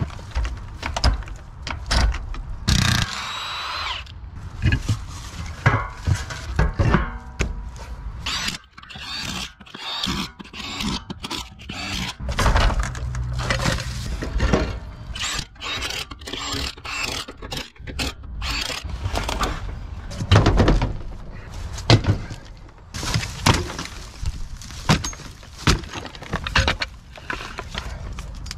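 Repeated knocks, thunks, scrapes and wood breaking from hand work on an overgrown boat trailer, with branches and debris being pulled away from its frame.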